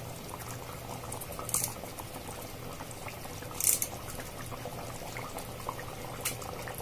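Ivy gourd curry in coconut gravy simmering in a pot on a gas flame: steady bubbling with many small pops, and a few brief hisses.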